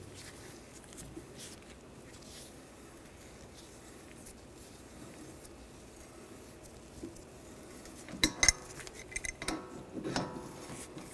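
Quiet at first, then about eight seconds in a burst of sharp metallic clinks and clatter with a brief ringing: steel tools and the bearing puller working the old wheel bearing's leftover inner race off the rear hub spindle.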